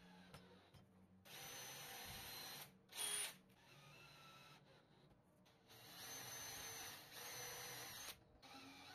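DeWalt cordless drill boring pilot holes through plywood. It runs in separate spells of a second or two with a high motor whine: one spell early on, a short louder burst about three seconds in, and two longer spells near the end.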